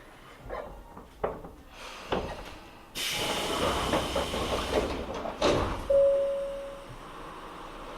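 Sliding doors of a Tobu 9000 series commuter train working at a stop. A few knocks come first, then a sudden hiss of air lasting about two and a half seconds, a heavy thud, and a short steady tone about a second long.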